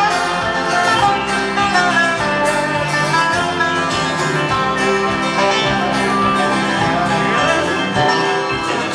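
Live instrumental break on a resonator guitar (dobro) played lap-style with a slide bar, its notes gliding between pitches over strummed acoustic guitar.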